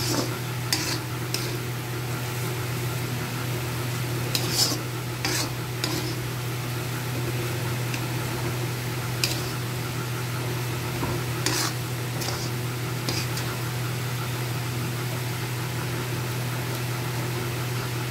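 A metal spoon stirring and scraping a mashed-potato spice filling around a kadhai, with a dozen or so scattered sharp clinks of the spoon against the pan over a steady low hum.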